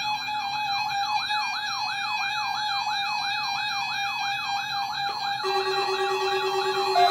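Weather radio alert alarm sounding for the weekly test of the NOAA Weather Radio warning system: a tone sweeping upward over and over, about three sweeps a second, over a steady tone. A second, lower steady tone joins about five seconds in.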